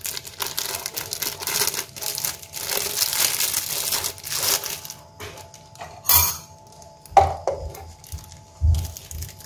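Thin plastic bags crinkling and rustling as they are handled and opened, followed by a few separate soft knocks in the second half.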